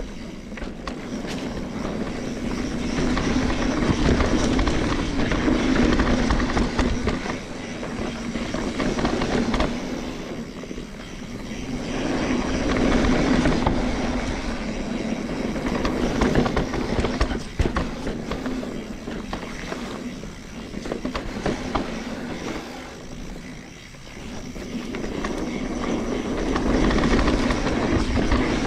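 Mountain bike rolling fast down a dirt forest trail: tyre noise over dirt and roots with the chain and bike rattling, swelling and easing with speed.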